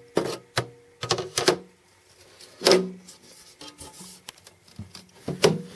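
Aluminium side door of a Mac Pro tower knocking and clanking against the case as it is fitted back on. There is a series of irregular knocks, some ringing briefly, and the loudest is about two and a half seconds in.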